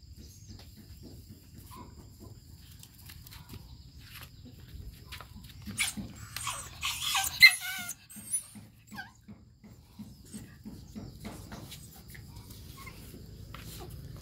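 Puppy whimpering and yelping during rough play, loudest in a cluster of high cries about six to eight seconds in.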